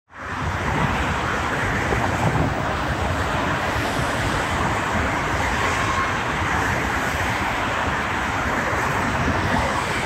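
Steady noise of busy motorway traffic, cars and lorries passing at speed, with wind rumbling on the microphone.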